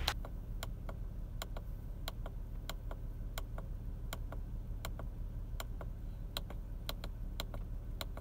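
Audi TT Mk2 wiper-stalk buttons clicking, a dozen or so presses at roughly one every half second to second, scrolling through the instrument cluster's display pages. A low steady hum runs underneath.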